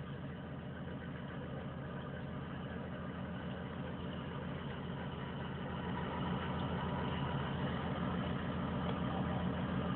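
A steady engine-like motor hum running evenly, growing slightly louder from about six seconds in.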